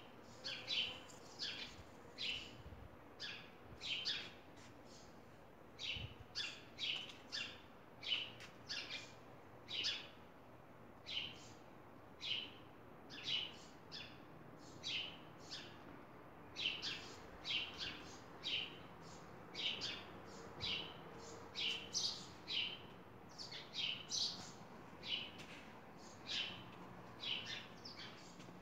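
Small bird chirping: short, high chirps repeated irregularly, about one or two a second, some in quick pairs.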